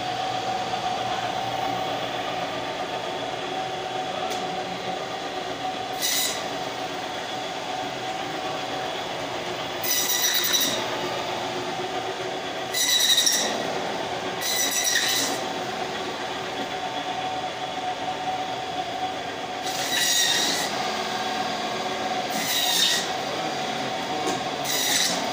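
Electric meat band saw running with a steady whine, broken by several short high-pitched squeals as the blade cuts through goat ribs and bone.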